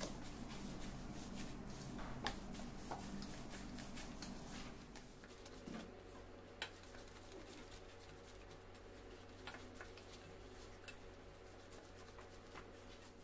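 A palm kneading crumbly fresh chhena in a stainless steel bowl, working the grainy curd smooth. It makes faint rubbing and scattered light clicks and taps against the steel.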